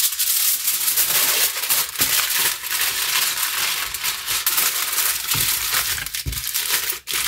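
Aluminium foil crinkling and crumpling as hands fold and crimp it into a packet around a pork chop, with a couple of soft thumps near the end.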